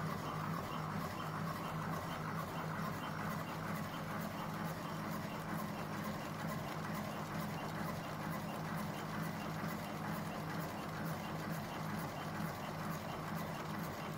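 Electric automatic cigarette filling machine running steadily: a constant motor hum with an even rhythm of light mechanical clicks from its cam-driven mechanism.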